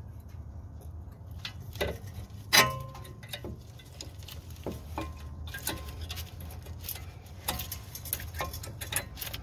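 New brake pads and their metal clips being pushed and tapped into the caliper bracket: a run of scattered metallic clicks, with one sharp, ringing clack about two and a half seconds in.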